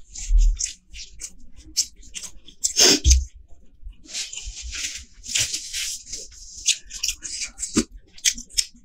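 Close-miked eating of a masala chicken leg: a stream of wet chewing and mouth clicks, with crackling and tearing as the cooked meat is pulled from the bone by hand, and a louder thud about three seconds in.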